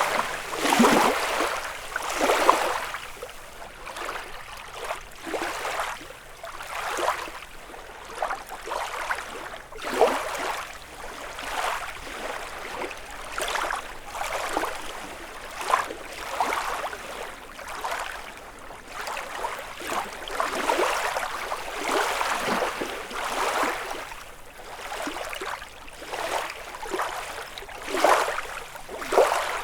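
Small waves lapping and splashing on a lakeshore, one irregular wash every second or two, with a few louder splashes at the start and near the end.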